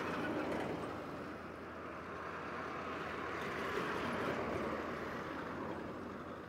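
Steady outdoor background noise with no distinct events, swelling slightly about three to four seconds in.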